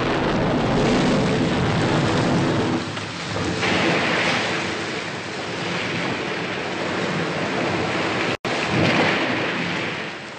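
Loud cartoon sound effect of a stormy sea: crashing surf and rushing water that swell and ebb several times. The sound cuts out completely for an instant about eight seconds in.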